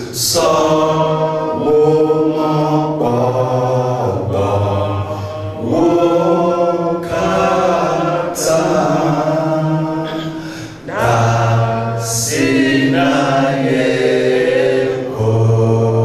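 A man singing a slow, chant-like song into a microphone in long held phrases, with a woman singing along beside him.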